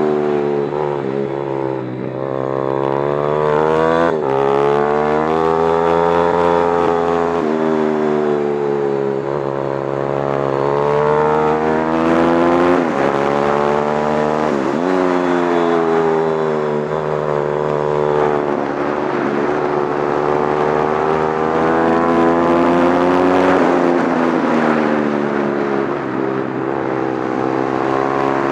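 Motorcycle engine heard onboard at speed, its pitch rising and falling as the rider accelerates and backs off through the corners, with a few quick dips in revs. A rush of wind noise runs under it.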